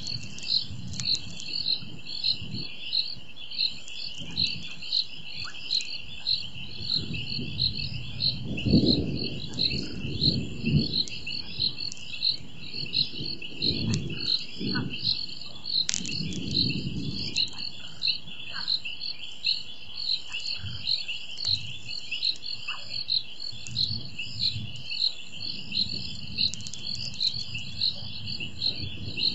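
Night chorus of frogs and insects at a waterhole: a steady high trill with a short high chirp repeating about once a second. Under it, low rumbles swell and fade, loudest about a third of the way in, in keeping with distant thunder.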